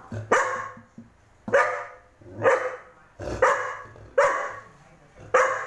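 Golden retriever puppy barking at its own reflection in a mirror: short, sharp barks about once a second.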